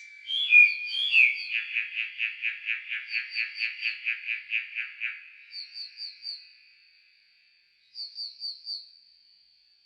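Nightingale song slowed to a quarter speed: a couple of gliding whistled notes, then a long even trill of about six notes a second lasting some four seconds, with short groups of four or five higher notes repeating several times after it.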